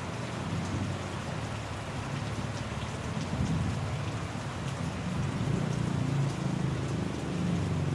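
Steady rain falling, with scattered drop ticks and a low rumble underneath that swells and fades.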